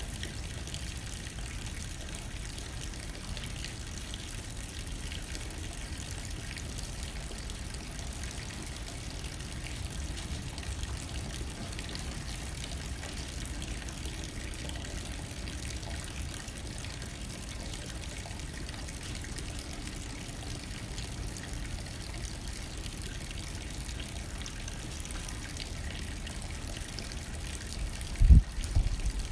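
Steady rain hitting a window pane, with a low rumble of wind underneath. Near the end come a few loud, low thumps.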